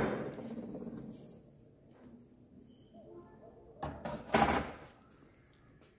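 Clatter of metal parts being handled on a workshop bench: a sharp knock at the start, then two short rattling clinks about four seconds in.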